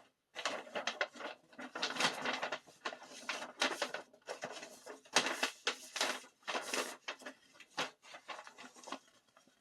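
Stiff paper rustling and crinkling in irregular bursts as a folded album poster is opened out by hand.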